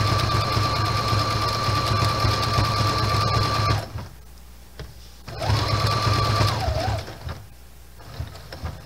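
Sewing machine stitching a blanket stitch around appliqué, its needle working back and forth with a steady motor whine. It runs for about four seconds, stops, runs again briefly a second and a half later, then stops.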